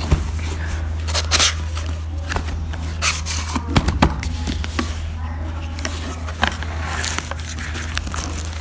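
Scrapes, taps and rustling of a cardboard phone box and its plastic wrapping being handled and opened, with a steady low hum underneath.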